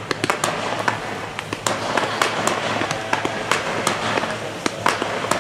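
Fireworks going off: a rapid, irregular string of sharp cracks and bangs, several a second, over a steady rushing background.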